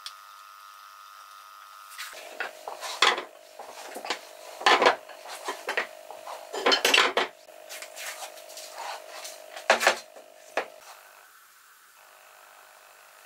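Steel-shanked lathe turning tools with wooden handles being handled in a pine tray, clinking against each other and knocking on the wood in an uneven string of sharp knocks that stops about eleven seconds in.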